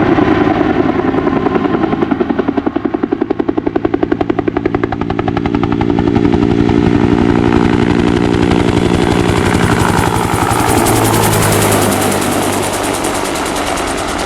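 Bell UH-1 Huey helicopter running, its two-blade main rotor beating in a fast, even pulse over the turboshaft engine's whine. The pulsing is strongest in the first half, and the high whine grows stronger in the second half.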